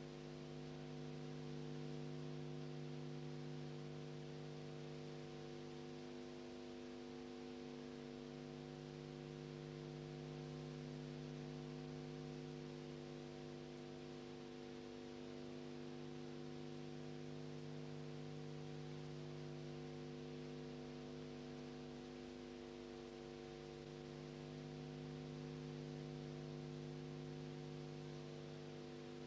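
Steady electrical mains hum, a buzz with a faint hiss, unchanging throughout.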